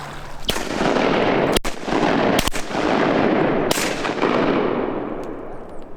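Four shotgun shots from a duck blind, about a second apart, over a loud rushing noise that fades away near the end.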